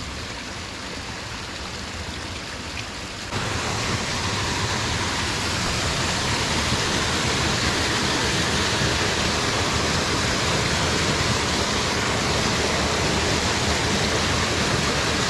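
Steady rush of flowing stream water, becoming louder about three seconds in.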